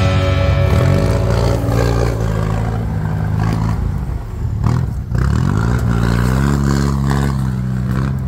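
Off-road vehicle engine accelerating under load. The revs climb about a second in, fall away around the middle, then climb again.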